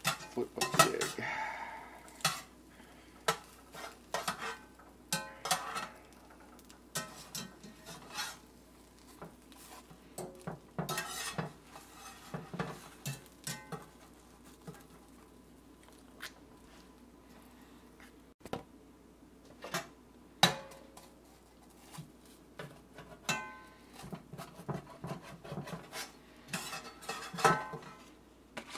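Metal spatula scraping and clanking against a cast-iron skillet in irregular knocks and short scrapes as the sandwiches are turned and lifted out, with a denser run of clatter near the end.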